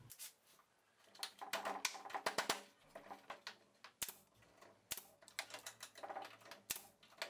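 Faint clicks and taps of wood and tools being handled at a workbench as a glued plywood strip is fitted and nailed onto a vise jaw. A quick run of small clicks comes about a second in, then single sharp clicks at intervals.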